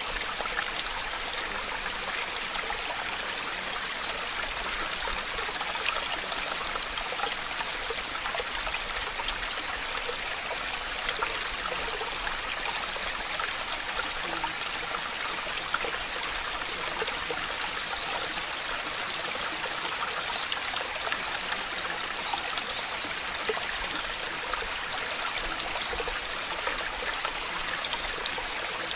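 Steady recorded water ambience: an even rushing hiss with faint scattered drips and ticks, unchanging throughout.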